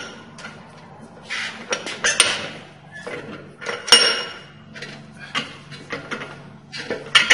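Brake caliper being clamped in a cast-iron bench vise: irregular metallic clinks and clanks as the vise is tightened, the loudest a ringing clank about four seconds in.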